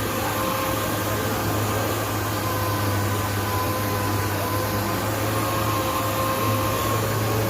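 Power sander running steadily against epoxy primer on a car body panel: an even whirring noise with a constant whine and a low hum that holds without a break.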